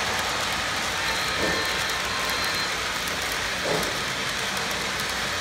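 Lionel O-gauge LionChief model train running along three-rail track: a steady rolling rumble of motor and wheels, with a few soft knocks at irregular points.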